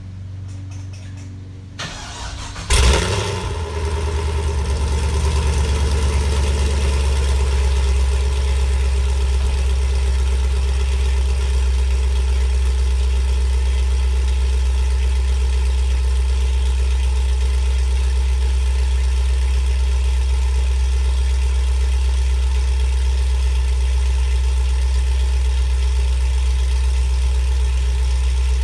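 2004 Pontiac GTO's 5.7-litre LS1 V8 starting through American Racing long-tube headers, a catless 3-inch X-pipe and a Corsa sport axle-back: a brief crank about two seconds in, a loud flare as it catches, then a steady, deep idle.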